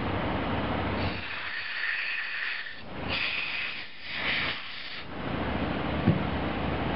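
Compressed air from a rubber-tipped blow gun hissing through the passages of a small-engine carburetor in several short blasts, clearing them out after ultrasonic cleaning. The blasts stop about five seconds in, leaving a steady low hum.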